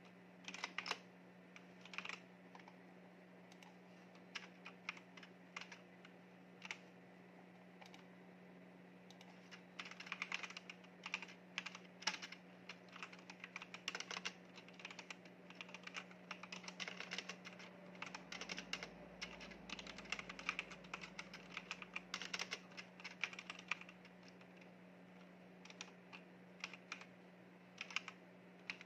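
Typing on a LEAVEN mechanical keyboard: scattered single keystrokes at first, then a run of fast continuous typing from about ten seconds in that thins back out to a few strokes near the end.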